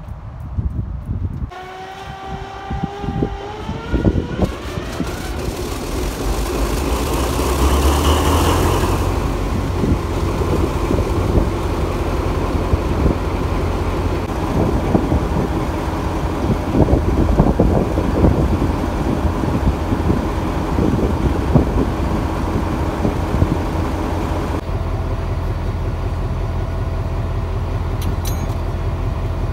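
TCDD 56548 steam locomotive standing in steam. A short tone rises in pitch a couple of seconds in, then a rush of steam hiss swells, peaks, and settles into a steady low rumble and hiss.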